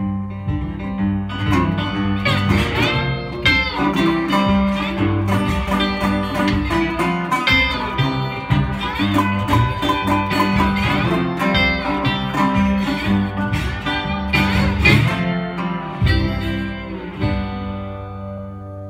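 A resonator guitar and a second guitar playing an instrumental blues passage, with some notes sliding in pitch. The playing thins out near the end and the last chord rings out.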